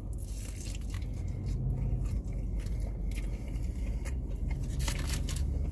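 Biting into and chewing crispy fried chicken, with irregular crunches and crackles that come thicker near the end, over a steady low hum.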